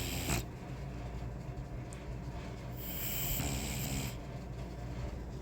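French bulldog snoring in its sleep: long, noisy breaths, one fading just after the start and another about three seconds in.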